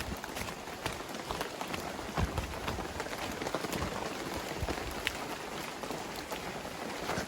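Steady rainfall: an even hiss dotted with many sharp individual drop hits.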